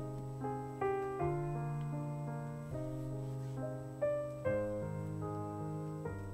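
Slow, gentle piano music: held chords struck every second or so, each ringing and fading before the next.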